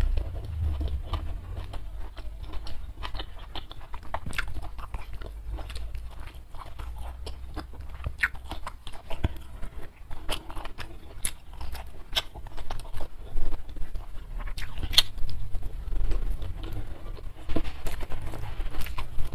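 Close-miked chewing of food, full of small wet mouth clicks and crunches.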